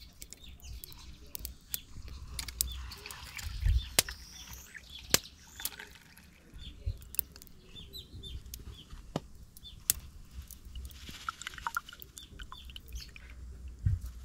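Birds chirping and calling, many short calls throughout, with scattered sharp clicks and knocks (the loudest about four and five seconds in) over a low rumble.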